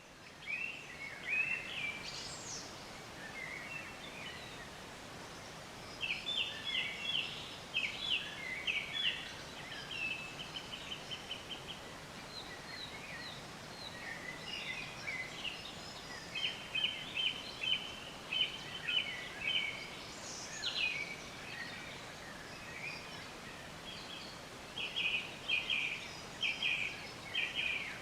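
Forest birds singing over a steady background hiss: phrases of quick repeated high notes every several seconds, with scattered chirps and calls in between.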